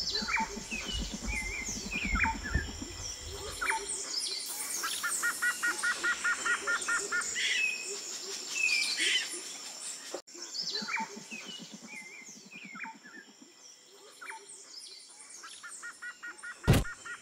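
Birds chirping and calling in open country, with many short falling chirps and a rapid trilling call heard twice. A sudden loud thump comes near the end.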